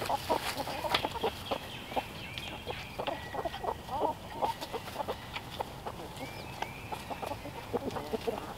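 A flock of hens clucking as they forage: many short, low clucks overlapping, with scattered clicks and rustles in dry leaves.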